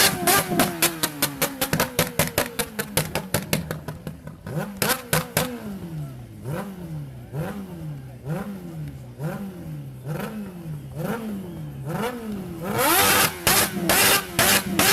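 Motorcycle engine revved hard against its rev limiter, crackling in rapid pops. Then it is blipped up and down about once a second, followed by a loud rush of noise near the end.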